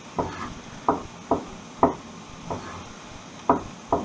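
Kitchen knife slicing small tomatoes and knocking onto a wooden chopping board, about seven sharp knocks at uneven intervals. The board is bowed and rocks under the blade.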